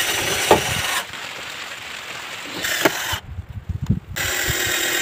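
A handheld power tool running in two bursts: loud for about the first second, then lower until about three seconds in, and starting again loud about four seconds in.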